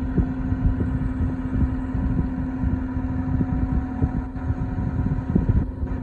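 Skid loader engine running steadily, with a constant whine over a low rumble and irregular low thumps.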